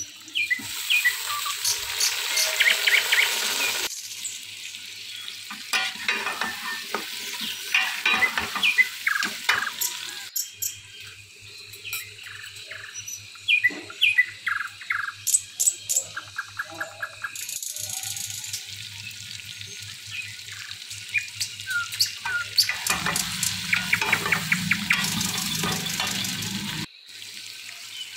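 Chopped tomatoes and green chillies going into hot oil with fried onions and mutton, sizzling loudly for the first few seconds. The masala then fries on more quietly while a metal spatula clicks and scrapes against the pot as it is stirred.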